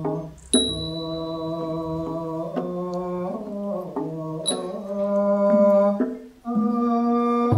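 A male vocalist singing a slow Thai classical vocal line in long, slowly bending held notes, with a break for breath about six seconds in. Two high ringing small-cymbal strokes, about four seconds apart, mark the beat.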